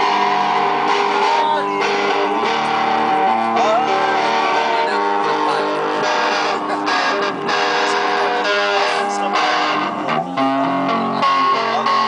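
Electric guitar played through a small amplifier, with a steady run of picked notes and strummed chords and several notes bent up in pitch.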